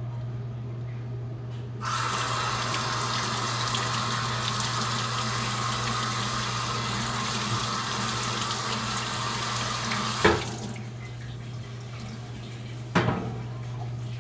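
Water running from a tap, starting a couple of seconds in and shut off after about eight seconds, followed by two sharp knocks.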